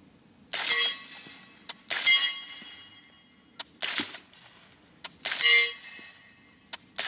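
Suppressed .300 Blackout AR-15 firing five shots about a second and a half apart, most of them followed by the ringing clang of a struck steel plate target.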